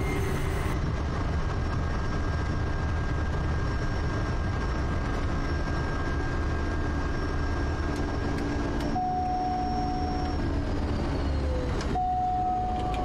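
Quest Kodiak turboprop engine and propeller running steadily at low power while taxiing, with a thin high turbine whine over the drone. Near the end a couple of tones slide down in pitch.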